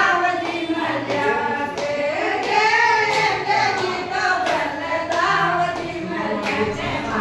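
Women singing a devotional bhajan in high voices, keeping time with steady hand claps about twice a second.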